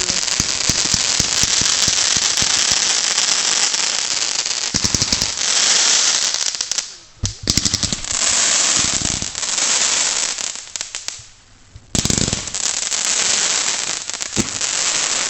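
Backyard consumer fireworks going off: dense crackling and hissing for the first several seconds, then separate hissing bursts with two deep thumps, about five and twelve seconds in.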